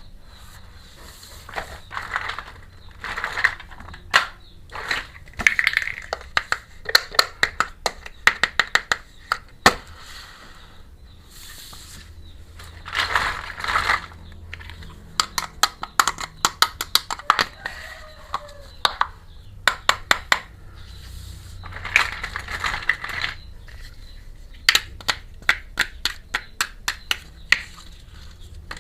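Small plastic miniature kitchen toy pieces clicking and tapping as they are handled, with bursts of crinkling plastic packaging. The clicks come in quick runs, several a second.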